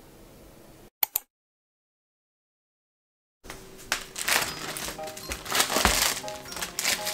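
Soft background music with two quick clicks and a stretch of dead silence. After that come cloth rustling and handling sounds as hands work a cotton cloth over pollack fillets, with soft music continuing underneath.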